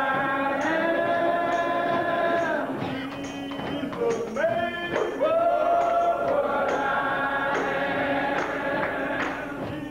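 Men's gospel choir singing in harmony, holding long sustained chords in two phrases, with a short break about three seconds in.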